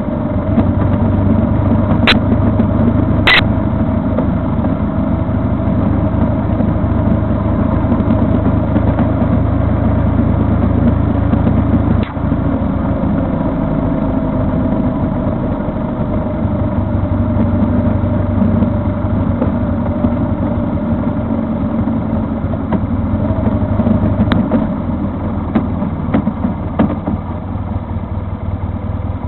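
A vehicle's engine running steadily under way, its hum rising and falling a little, with two sharp clicks about two and three seconds in.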